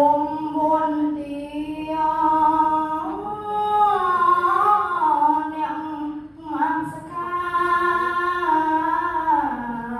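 A solo voice chanting Khmer verse to a slow, unaccompanied melody in long held notes, with a short breath about six and a half seconds in.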